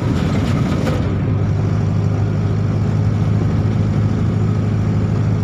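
Steady engine and road noise of a moving road vehicle, a continuous low rumble, with a brief hiss in the first second.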